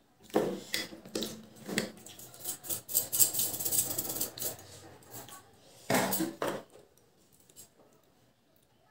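A small shaker bottle shaken over a plate of rice: a dense rattle for about two seconds in the middle, with sharp clicks and knocks of the hand, the bottle and the plate before and after.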